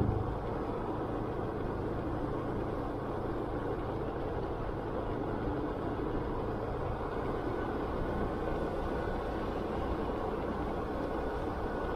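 Motorcycle riding at a steady speed: its engine and the rush of wind and road noise make an even, steady rumble. There is a brief low thump right at the start.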